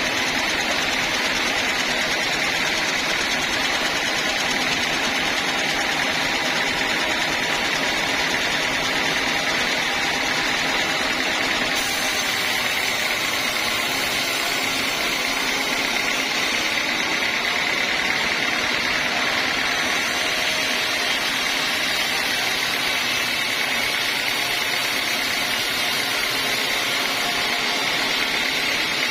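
Homemade band sawmill running steadily, with a constant high whine over an even machine noise.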